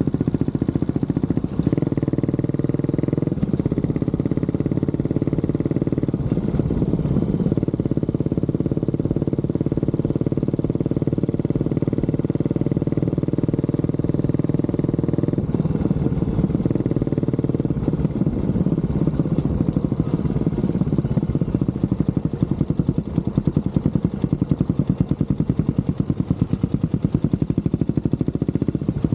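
Honda CB400SS single-cylinder motorcycle engine running steadily under way, its pitch shifting around the middle. In the last several seconds the engine note turns into a slower, even pulsing.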